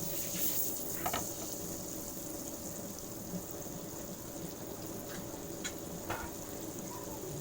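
Butter and cooking oil heating in a frying pan, giving a steady sizzling hiss with a few small pops.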